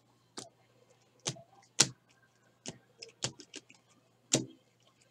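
Glossy baseball trading cards being flipped and slid against one another in the hands: a scattering of short, sharp clicks and snaps at irregular intervals, the loudest just under two seconds in and again just past four seconds.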